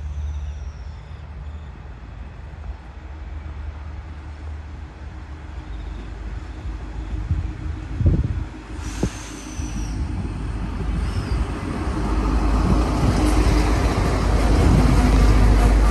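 A diesel train approaching along the line, its low rumble growing steadily louder through the second half. There are a couple of sharp knocks just past the middle.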